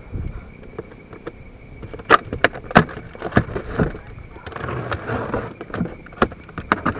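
Box cutter slitting the packing tape along a cardboard box's seam: irregular sharp crackles and snaps of tape and cardboard, with a short rasping stretch about halfway through.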